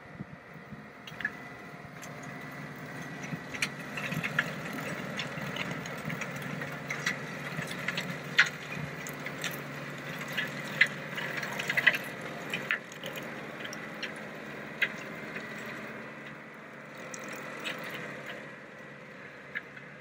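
Tractor engine running under load while driving the PTO-driven steel chain rotor of a Griffith Jungle Buster heavy-duty chain slasher through rushes and gorse. Many sharp cracks and ticks are scattered over a steady hum, thickest in the middle and thinning out near the end.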